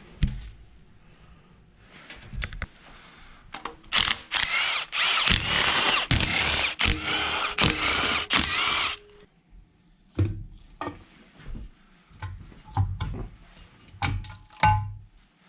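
Power driver run in a string of short bursts for about five seconds, backing out intake manifold bolts on a 360 small-block V8, followed by scattered clicks and clanks of tools and loose bolts.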